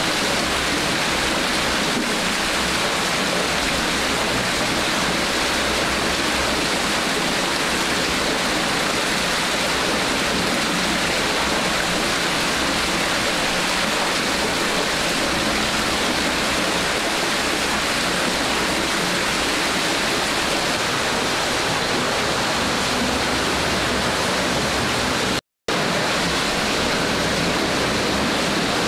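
Water pouring and churning in a wooden tub in a steady, loud rush. The sound cuts out for a split second near the end.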